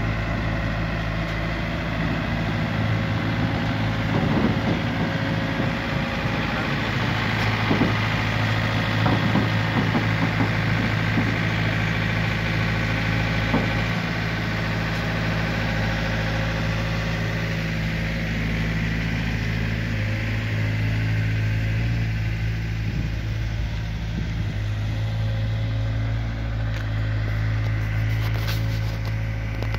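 Takeuchi TB240 mini excavator's diesel engine running steadily at idle, with light clattering a few seconds in that dies away about midway.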